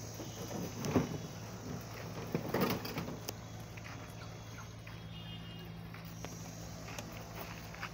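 Quiet outdoor ambience: a steady low hum, with a few soft knocks and thumps in the first three seconds and some faint high tones.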